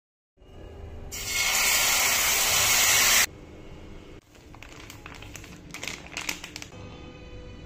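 A loud, steady hiss for about two seconds that cuts off suddenly, followed by a plastic packet crinkling as flour is poured from it into a steel bowl.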